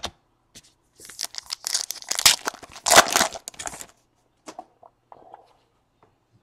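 A trading card pack wrapper being torn open and crinkled, a dense crackling rip lasting about three seconds, followed by a few small handling clicks.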